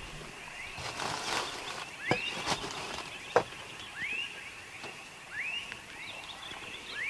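Dusk bush sounds: an animal repeats a short call that sweeps up and drops back, about every second and a half, over a faint steady high insect hum. A few sharp clicks sound in the first half.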